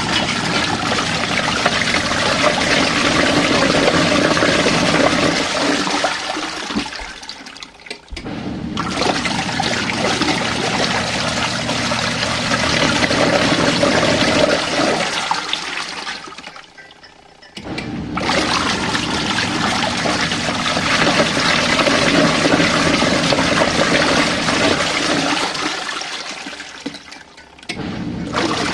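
Compact portable washing machine churning water and laundry in its wash cycle. The churning runs in three spells of about seven to eight seconds, each ending in a short pause.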